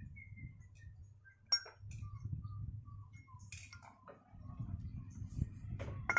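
Metal parts and tools clinking sharply, once about a second and a half in and again near the end, as scooter CVT parts are handled, with a faint tune of short whistled notes in the background.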